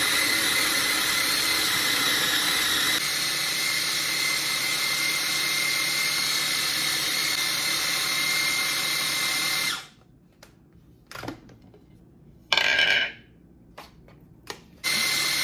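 Food processor motor running steadily as it purées cooked chicken livers, onions and butter into pâté. It stops abruptly about ten seconds in, gives one short pulse a few seconds later, then starts running again near the end.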